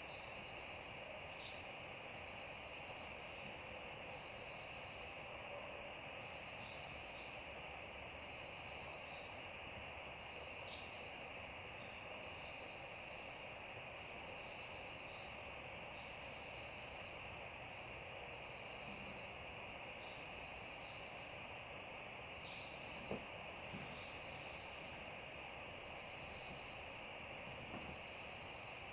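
Night chorus of crickets and other insects: a steady high trill with one high note pulsing at an even beat over it, and scattered fainter chirps.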